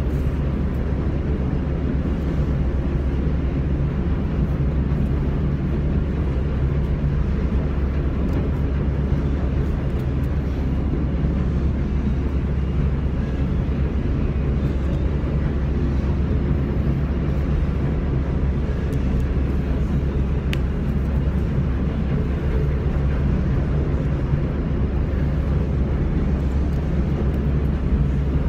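Steady low mechanical drone, even and unchanging throughout, with a few faint small ticks.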